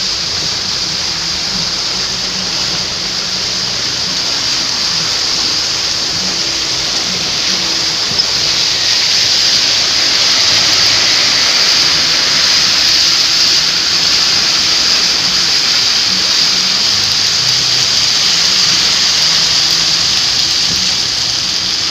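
Heavy rain falling in a downpour: a loud, steady, dense hiss that grows a little louder about nine seconds in.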